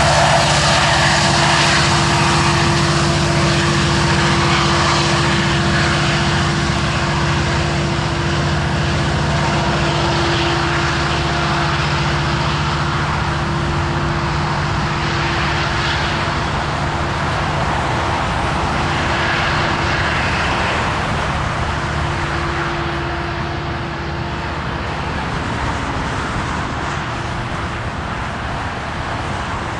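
Rear distributed-power BNSF SD70MAC diesel-electric locomotives, with EMD 710 two-stroke V16 engines, running with a steady engine drone that slowly fades as they pull away.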